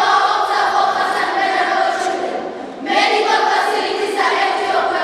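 A group of schoolchildren voicing a choral piece in unison, in phrases of a few seconds with brief breaks between them, about three and four seconds in.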